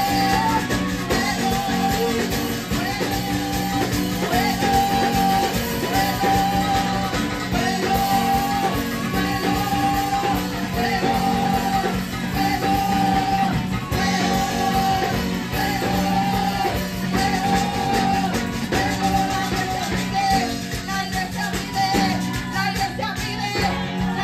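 Live Spanish-language Pentecostal worship chorus: women singing into microphones over electric guitar, with maracas shaken along. A short melodic line repeats about once a second.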